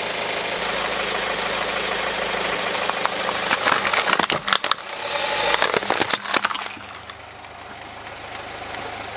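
A car tyre rolls over a plastic transforming-robot toy and cracks it apart: a run of sharp plastic cracks and snaps from about three seconds in until nearly seven, over the car's engine running. The engine noise turns quieter near the end.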